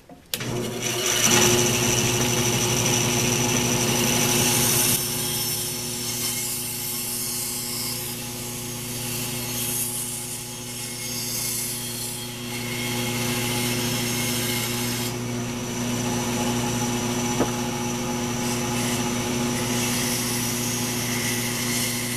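Bandsaw running and cutting through a glued-up wooden blank: a steady motor hum under the rasp of the blade in the wood. The sound starts suddenly and the cutting noise eases a little about five seconds in.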